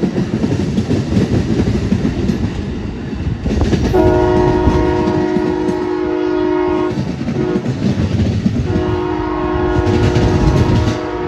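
Amtrak passenger train's wheels rumbling with a clickety-clack over jointed rail as the cars roll by, then two long blasts of the train's horn, a chord of several steady tones. The horn blasts are each about three seconds long, with a gap of under two seconds between them.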